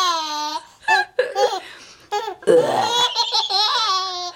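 A baby laughing hard: high-pitched squealing belly laughs in several bursts, the first falling in pitch, then a long laugh starting about two and a half seconds in.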